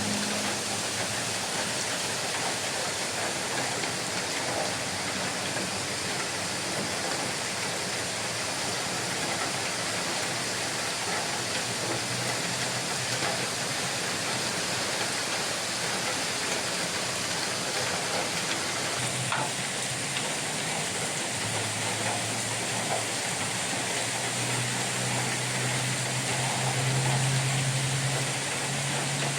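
Steady rain falling, an even hiss of drops. A low hum joins about two-thirds of the way in and grows stronger near the end.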